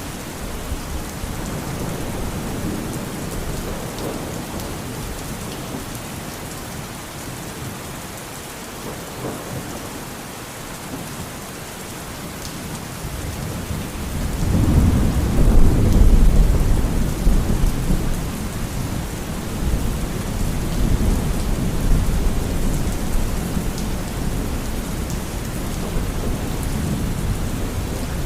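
Steady rain with thunder: a long low rumble swells about halfway through, then slowly eases while the rain goes on.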